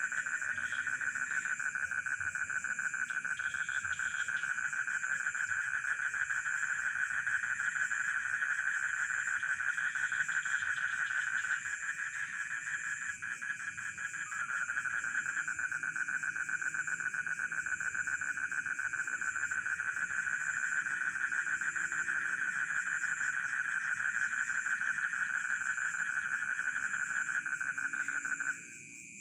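Dense chorus of frogs and crickets in a rice field: a steady, fast-pulsing trill with fainter lower frog calls underneath. It thins briefly about halfway through and cuts off abruptly just before the end.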